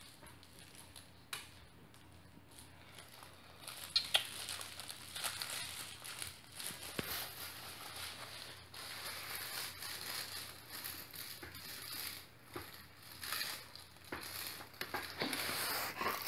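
Five-week-old puppies chewing and tugging plush toys on blankets: soft rustling and crinkling of fabric, with a few faint clicks at first and steadier, louder rustling from about four seconds in.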